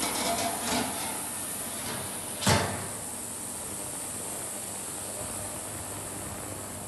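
Stainless steel lid being set onto a stainless steel tank: a few light metallic clicks, then one loud knock about two and a half seconds in as the lid drops into place, over a steady hiss.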